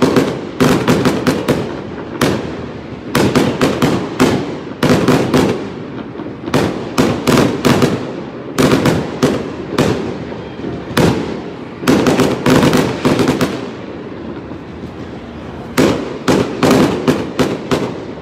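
A fireworks display: aerial shells going up and bursting in rapid volleys of sharp bangs, several a second, with short lulls between the volleys.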